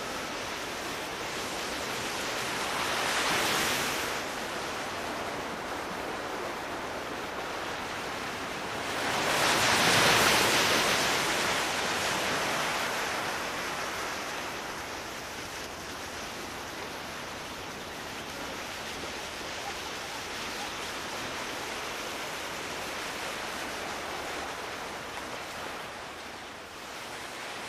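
Sea waves washing on a shore: a steady rush of surf that swells louder twice, about three seconds in and again, more strongly, around ten seconds in.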